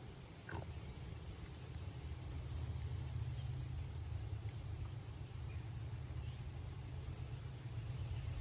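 Steady low rumble with crickets chirping faintly, and a brief falling squeak about half a second in.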